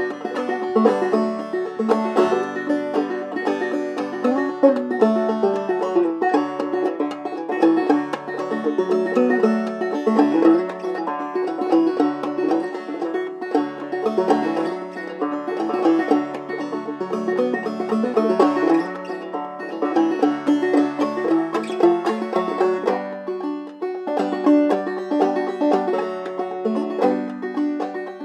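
Kevin Enoch Dobson open-back banjo played solo, clawhammer style, in open D tuning (f#DF#AD): a continuous, mellow stream of plucked notes carrying an old-time jam tune.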